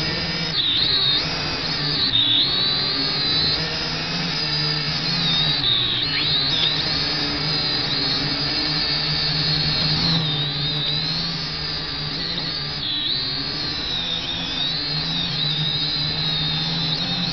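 Potensic drone's electric motors and propellers whining in flight, recorded close up by the drone's own camera. The high whine holds steady over a low hum, its pitch dipping briefly several times as the motor speeds change.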